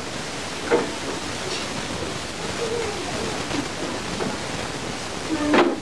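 Steady hiss of room noise and camcorder recording, with faint children's voices in the background and one brief louder voice just before the end.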